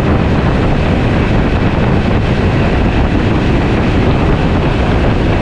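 Steady wind buffeting the microphone and rushing water as a small boat travels at speed.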